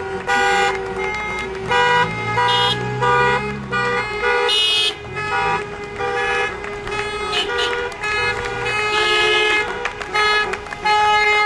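Car horns honking over and over in short toots, several horns of different pitches overlapping: drivers honking to show support for a protest.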